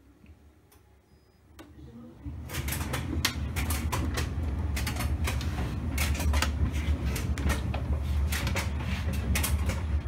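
Electrolux EW9H3825RA tumble dryer starting its wool programme: about two seconds in its drum begins to turn with a steady low hum, and frequent irregular clicks and knocks come from the tumbling load.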